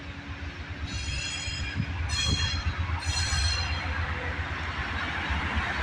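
Amtrak California Zephyr passenger train, led by a GE P42DC diesel locomotive, approaching: a low rumble that grows louder, with three short high-pitched squeals about one, two and three seconds in.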